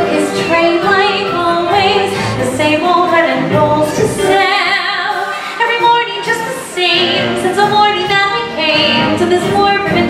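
Amplified show tune: several voices sing, female voices prominent, with vibrato on held notes over musical accompaniment.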